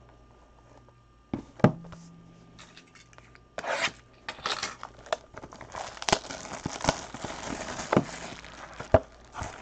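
A couple of sharp knocks as a cardboard trading-card box is handled, about a second and a half in, then from about the middle, plastic shrink wrap tearing and crinkling as the sealed box is unwrapped, with many small clicks and crackles.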